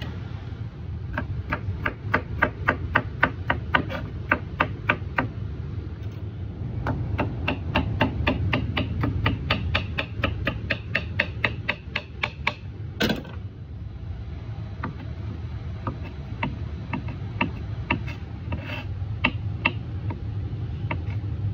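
Kitchen knife chopping avocado on a plastic cutting board: quick, even chops at about four a second, one louder knock about halfway, then slower, scattered cuts. A steady low hum runs underneath.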